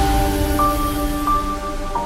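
Background music: slow ambient melody of held notes over a deep bass that comes in at the start.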